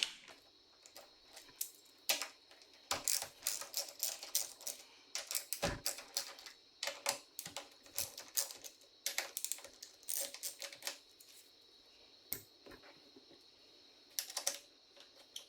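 Ratchet with a T45 Torx bit clicking in quick runs as the four handlebar clamp bolts are loosened, with a single heavier knock of metal about five and a half seconds in.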